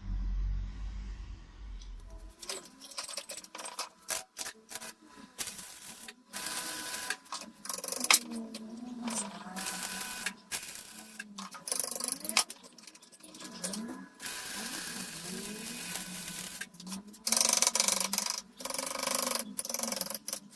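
Homemade belt grinder running, with repeated loud stretches of grinding as a piece is pressed against the moving belt. A steady whine runs underneath the grinding.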